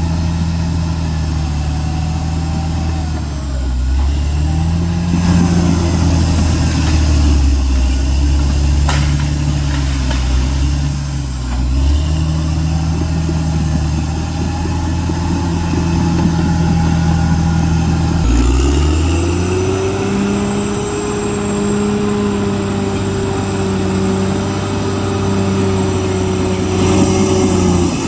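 Caterpillar D6R XL bulldozer's diesel engine working, its note dipping and recovering several times. About two-thirds of the way through it rises to a higher steady pitch, then drops back just before the end.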